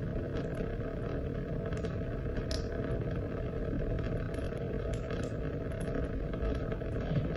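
Steady rain: a dense, even rush of falling water with scattered sharp ticks of single drops.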